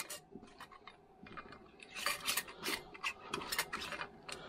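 Metal canning lids and screw bands clinking and scraping against glass mason jars as they are fitted and screwed on. A scatter of small clicks, busiest in the second half.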